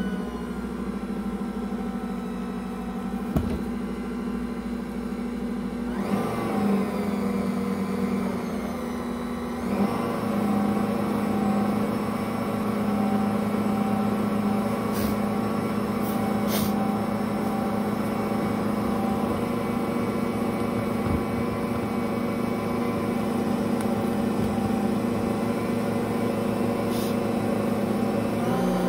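Ankarsrum stand mixer running, its stainless steel bowl turning under the roller and scraper as it mixes bread dough. The motor hum is steady, shifts in tone about six seconds in and grows louder about ten seconds in, with a few faint clicks.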